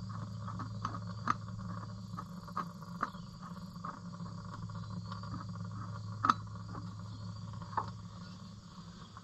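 Light, irregular clinks and taps of metal parts being handled as the tractor's oil filter housing is opened up, over a steady low hum.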